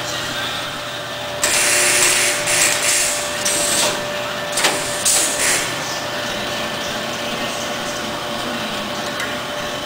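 Shanklin A-27A shrink-wrapping machine running with a steady hum and a held tone. From about a second and a half in come several loud bursts of hiss, with a sharp click in the middle of them.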